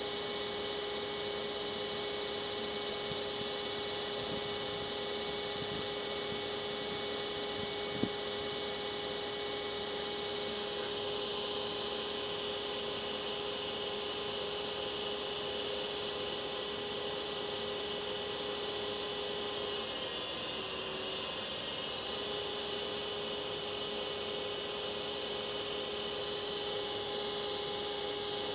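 Electric locomotive standing with its pantograph raised, giving off a steady electrical hum of several held tones over a noise of fans. The tones waver and dip briefly about twenty seconds in, and a single sharp click comes about eight seconds in.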